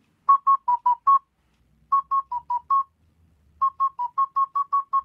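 Intro jingle of short, clean high notes in a quick tune on two close pitches: a phrase of five notes, a second of five, then a longer run of about six notes a second.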